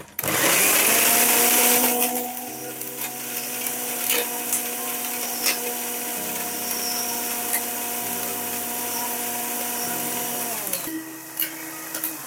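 Electric mixer grinder with a stainless-steel jar grinding soft dates, spices and water into a sweet chutney. Loudest for the first two seconds, then a steady whirring hum. Near the end the motor is switched off and winds down with falling pitch.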